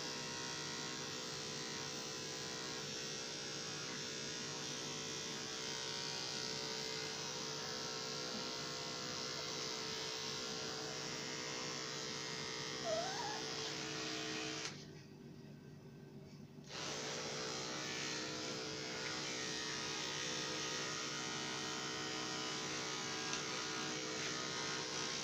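Electric dog grooming clippers humming steadily as they trim the hair on a puppy's ears, stopping for about two seconds just past the middle and then running again.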